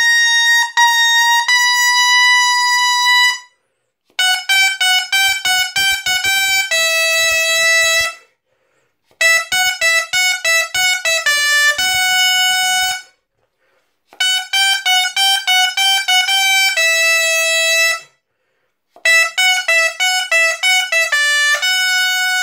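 Dolçaina, the Valencian double-reed shawm, playing a song melody solo with a bright, reedy tone. It goes in five phrases of quick notes, each ending on a held note, with short pauses between them.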